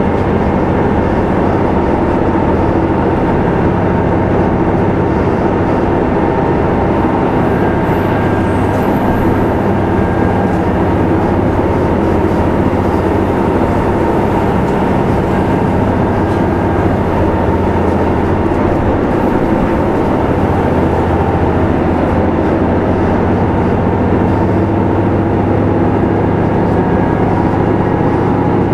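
KiHa 75 diesel railcar running steadily between stations, heard from inside the car: an even drone of its diesel engine and running gear with wheel-on-rail noise, holding level throughout.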